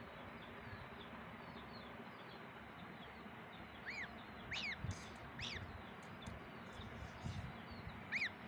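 Duckling peeping: short calls that rise and then fall in pitch, three in quick succession about four seconds in and another near the end.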